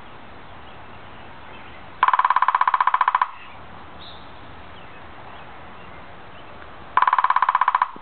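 Downy woodpecker drumming on hollow dead timber bamboo: two rapid rolls of about fifteen taps a second, the first a little over a second long and the second just under one, each ringing with a clear hollow tone.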